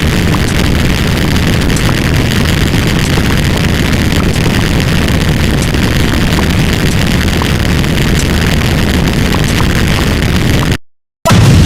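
A loud, dense jumble of many sound effects played at once, dominated by engine-like rumble. It cuts out to silence for about half a second near the end, then comes back just as loud.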